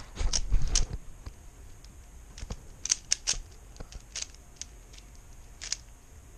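A 3x3 speed cube being turned by hand: irregular clicking of the layers. There is a quick cluster of turns with low thumps in the first second, then scattered clicks.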